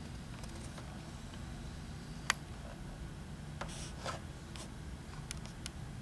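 Steady low hum with a few short, sharp clicks and taps scattered through, the clearest about two seconds in and several more in the second half.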